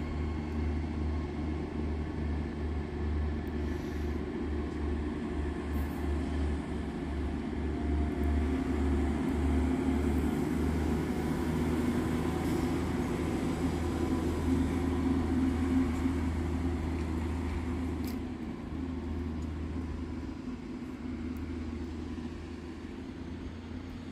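Red DB regional multiple-unit train running slowly past, a deep pulsing rumble that grows louder midway and fades away over the last several seconds.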